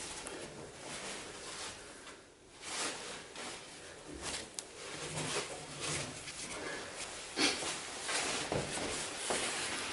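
A V-belt being worked onto a tensioned multi-groove pulley by turning the pulley by hand: irregular rubbing and scraping of the rubber belt and glove against the pulley, with a few sharper knocks.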